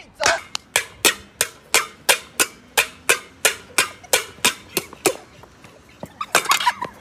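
A metal pot lid struck in quick, evenly spaced sharp strikes, about three a second, each with a short ring. A voice cries out briefly near the end.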